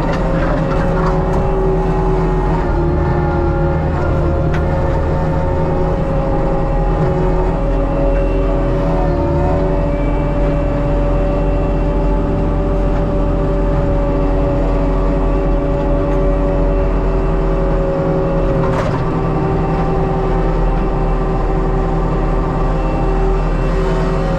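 ASV RT120 forestry track loader with a Fecon mulching head, heard from the cab: a loud, constant diesel-and-hydraulic drone with steady whining tones. The pitch dips briefly about nine seconds in, and a single sharp knock comes near the end.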